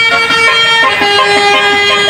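Basuri telolet musical horn on a truck playing a tune: a run of short horn notes, then one note held from about halfway through.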